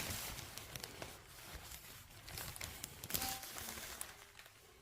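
Block-laying work noises: irregular scraping with scattered light knocks and clicks of trowel, mortar and solid jumbo blocks, loudest about three seconds in.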